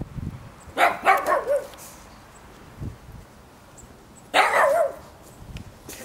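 Pug barking in two bursts: a quick run of short barks about a second in, then one longer bark with a wavering pitch a few seconds later.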